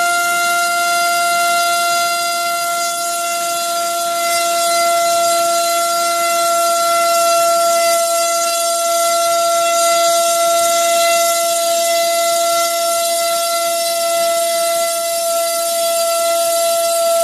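Cobra 2208 2000kV brushless motor spinning an HQ 6x4.5 propeller at full throttle on a thrust stand: a loud, steady whine with a rush of air, the motor pulling over a kilogram of thrust and about 22 A on 4S, double its 12A ESC's rating.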